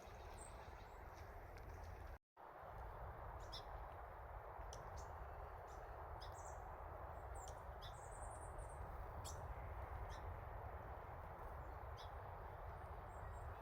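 Small birds giving short, high chirps scattered throughout, with one longer buzzy trill about eight seconds in, over a steady background hiss. The sound cuts out for an instant about two seconds in.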